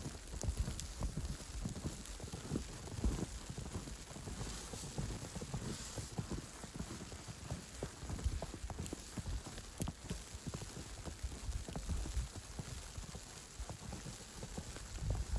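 Footsteps walking on snow at a steady pace, a continuous run of soft thuds.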